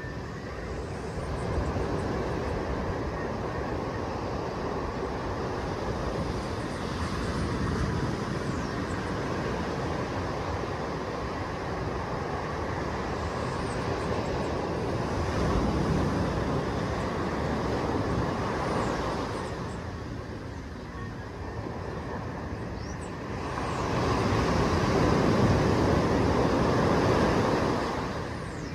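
Small surf breaking and washing up a sandy beach: a steady rush of water that swells about every eight seconds as a wave breaks, eases off for a few seconds, then rises to its loudest near the end.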